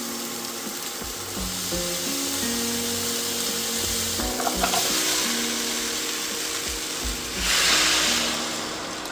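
Stir-fry sizzling in a hot pan, a steady frying hiss that swells louder for about a second around seven and a half seconds in, with background music.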